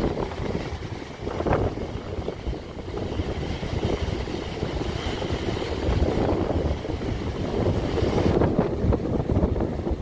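Sea waves breaking and washing over rocks, with strong wind buffeting the microphone, loud and rumbling in the low end.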